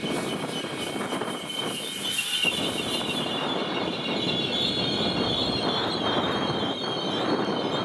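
Train passing, its steel wheels rolling on the rails with a steady high-pitched squeal.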